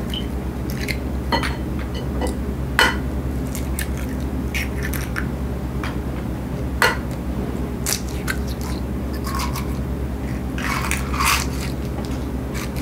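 Eggs being cracked one by one into a bowl: sharp taps of shell on the bowl's rim, the clearest about three and seven seconds in, with crackling as shells are pulled apart. A steady low hum runs underneath.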